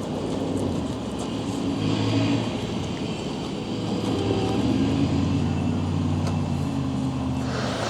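A vehicle engine running steadily at low pitch, its tone shifting slightly now and then.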